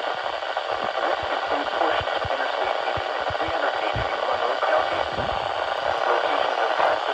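Steady hiss of radio static from a weather radio receiver between broadcasts, with scattered faint crackles.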